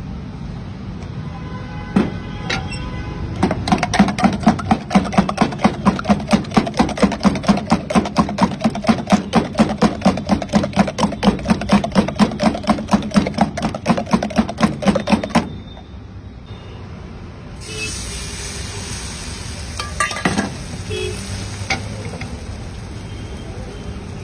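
A metal utensil beating egg whites and chopped vegetables in a steel mug, clinking rapidly against the sides about four to five times a second before stopping. A couple of seconds later the mixture hisses and sizzles in a hot pan with no oil, with a few scrapes against the metal.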